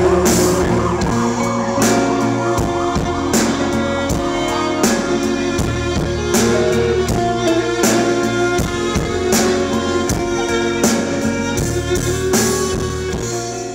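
Live rock band playing an instrumental passage on electric guitars, violin, bass and drum kit, with steady drum strokes. The music fades down near the end.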